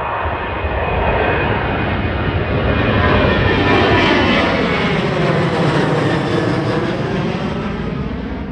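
Airliner passing close by, its engine roar swelling to a peak about three to four seconds in and then fading, with a sweeping rise-and-fall in pitch as it goes past. A steady low rumble of wind on the microphone lies underneath.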